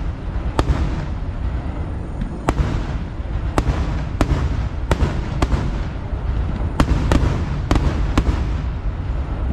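Kerala vedikkettu fireworks going off: a continuous low crackling rumble with about ten sharp bangs at irregular intervals.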